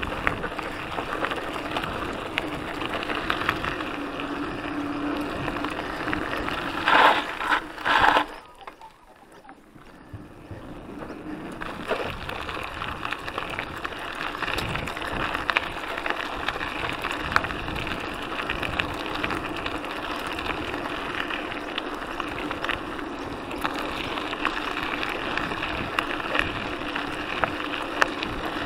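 Mountain bike ridden over a dirt and gravel trail, picked up by an action camera strapped to the rider: a steady rattle and crunch of tyres, bike and camera bouncing over the ground. Two loud jolts come about seven and eight seconds in, then it goes quieter for about three seconds before the rattle returns.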